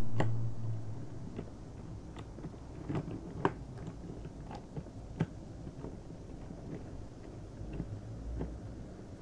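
Toy subway train running on its track: a low hum that dies away in the first second, then a low rumble with scattered light clicks and knocks, the rumble swelling slightly near the end.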